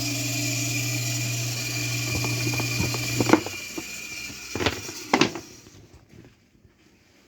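Kawamoto N3-136SH well pump's electric motor running with a steady hum and a high whine, an abnormal noise from a pump sold as junk. About three seconds in it is switched off and winds down, followed by a few sharp knocks.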